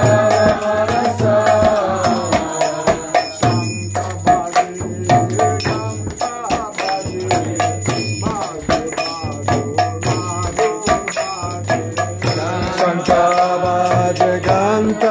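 Devotional kirtan during an arati offering: voices chanting a melody, with a ringing bell and quick, evenly spaced metallic strikes keeping the beat over a steady low drone.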